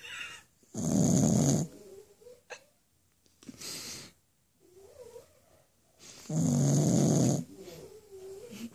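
Sleeping pug snoring: two loud snores about five seconds apart. Between them come a softer breath and a faint wavering whistle.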